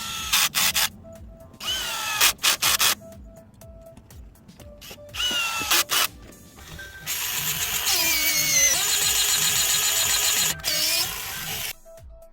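Power drill run in three short bursts and then one longer run of about five seconds, its motor pitch rising as it spins up and falling as it stops. Background music plays underneath.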